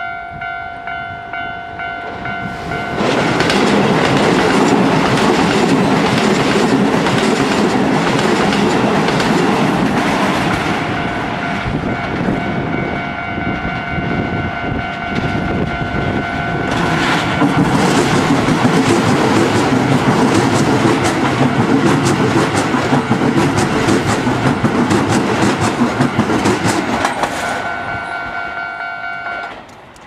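Japanese railway level-crossing warning bell ringing in a steady pulsing rhythm while two Keisei 3000-series electric trains pass one after the other, each a long loud rush with wheels clacking over the rail joints. The bell stops near the end.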